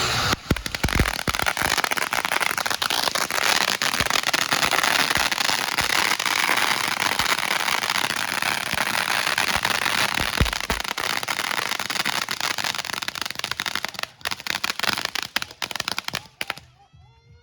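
Consumer fireworks going off: a dense, continuous crackling hiss of rapid pops for about sixteen seconds, thinning out and cutting off abruptly shortly before the end.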